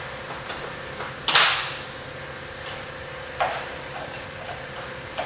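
Plastic fastener covers being snapped onto vinyl railing brackets: a sharp snap about a second in and a smaller one about two seconds later, with a few light clicks.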